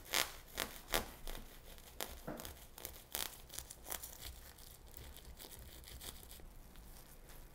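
Kitchen knife sawing through a sandwich wrapped in plastic cling film, the wrap crinkling and tearing with each stroke through the bread. The sharp strokes come about twice a second for the first four seconds, then give way to fainter scraping.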